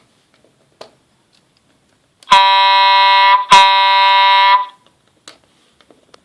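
Electronic horn from an RC horn sound module giving two blasts of about a second each, back to back, at one steady pitch with a buzzy, alarm-like tone.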